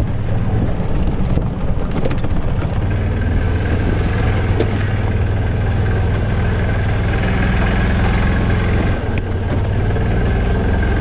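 ATV-style golf cart running along a bumpy path, a steady low drone with a thin whine from about three seconds in and a few brief knocks as the unsprung cart jolts.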